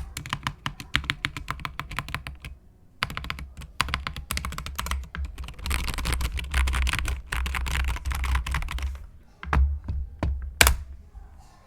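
Typing on a SteelSeries Apex Pro TKL keyboard with OmniPoint magnetic switches: fast runs of keystrokes with a brief pause about two and a half seconds in, ending in a few separate keypresses, the last one loudest.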